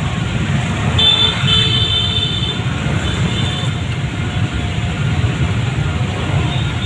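Road traffic with a steady engine rumble, and a vehicle horn tooting about a second in.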